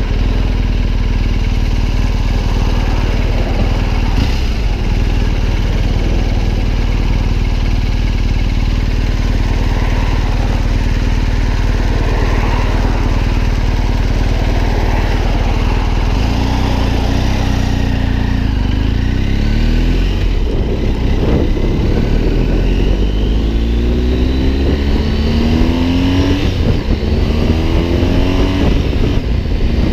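BMW R 1250 GS Adventure's boxer-twin engine running at low revs, then, about halfway through, accelerating hard up through the gears: its pitch climbs in several rising sweeps, each dropping back at a gear change.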